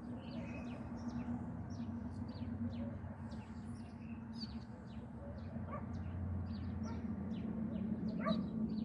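A group of small birds chirping busily, many short high chirps in quick succession, over a steady low hum.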